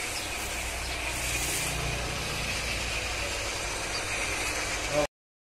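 A motor running steadily with a low hum and some hiss, cutting off suddenly about five seconds in.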